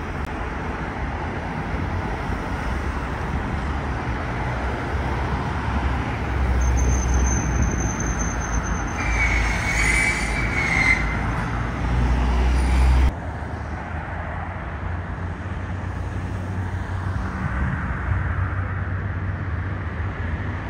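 Steady road traffic noise with a heavy low rumble, which drops abruptly about two-thirds of the way through.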